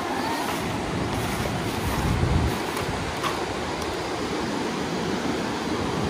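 Ocean surf washing steadily, with wind buffeting the microphone in low gusts, heaviest about two seconds in.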